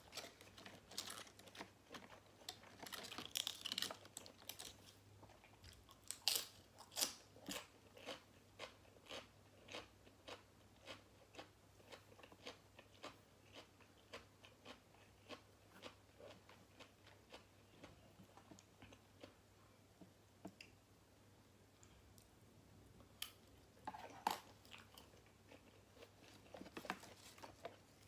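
Close-miked biting and chewing of grilled pork balls eaten with crisp raw vegetables: crunchy bites followed by a steady chewing rhythm. The chewing fades for a few seconds in the second half, then a fresh crunchy bite comes near the end.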